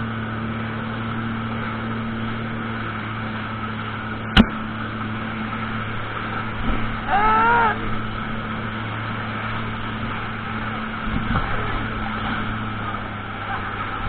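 Sea-Doo jet ski engine running steadily with water hiss. There is a sharp knock about four seconds in, and a drawn-out call that rises and falls in pitch a little past seven seconds.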